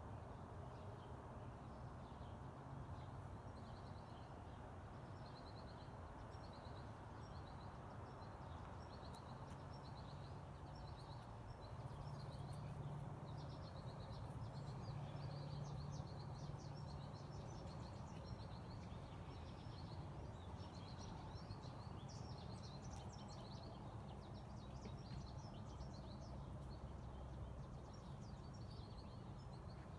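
Faint outdoor ambience: a steady low rumble with small birds chirping over and over in the background, the chirps busier in the second half.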